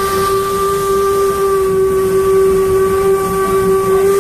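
Steam locomotive No. 475's whistle blowing one long, steady blast, heard close by from the train, over the low rumble of the moving train.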